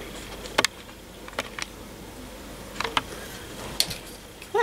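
Scattered light clicks and taps, about six in all, as the pieces of a small flat-pack craft box are handled and set on a work table.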